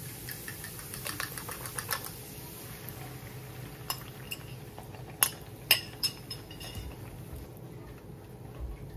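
A metal fork and a glass bowl clinking as beaten eggs are poured into a skillet. There is quick light clicking at first, then a few sharp clinks in the middle.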